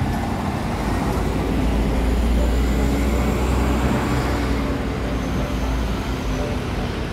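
Busy city-junction traffic: the deep engine rumble of a double-decker bus swells about two seconds in and eases off a few seconds later, over a steady hiss of passing cars.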